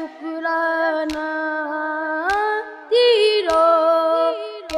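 A boy singing a Muharram naat in Urdu, drawing out the word 'shukrana' in long held, ornamented notes with gliding turns. A few sharp, low knocks of a beat sound beneath the voice.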